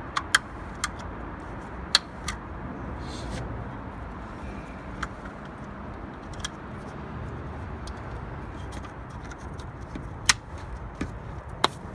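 Scattered sharp plastic clicks and snaps as number plate light units are pushed into the plastic tailgate handle trim of a Nissan Qashqai: several close together in the first two seconds, the loudest about ten seconds in, another near the end. A steady low background rumble runs underneath.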